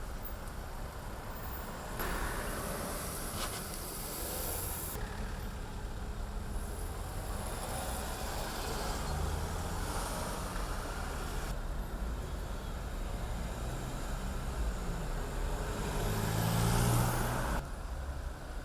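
Road traffic noise, steady, with abrupt changes in character every few seconds. A louder swell near the end cuts off suddenly.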